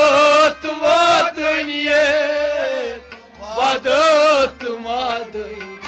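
A man singing a Kashmiri Sufi kalam to harmonium accompaniment: three long phrases with a wavering pitch, the harmonium sounding beneath.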